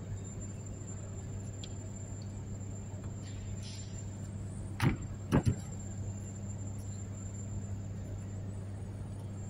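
A steady low mechanical hum of machinery running, with three sharp metallic knocks close together about halfway through as parts of a disassembled hydraulic pump are handled.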